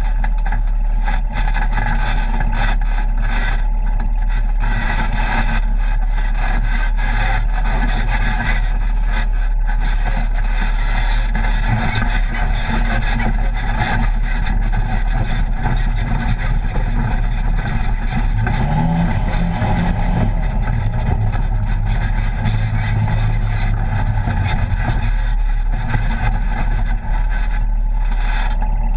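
Polaris RZR side-by-side running along a rough dirt trail, heard from inside the open cab: steady engine and drive noise, with the engine note climbing briefly a little past halfway.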